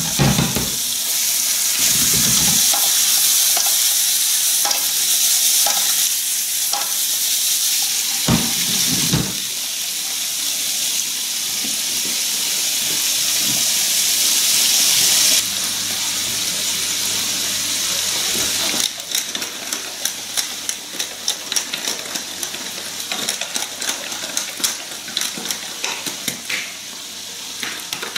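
Squid pieces and garlic sizzling in a hot frying pan, with a few low knocks as the pan is handled in the first ten seconds. From about two-thirds of the way in, the steady sizzle gives way to a spattering crackle.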